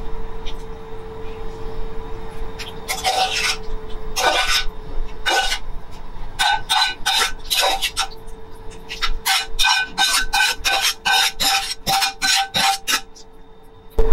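Metal tongs scraping and clinking against a metal frying pan while pasta is scooped out and plated, a series of short rasping strokes with a metallic ring that come about two a second in the second half.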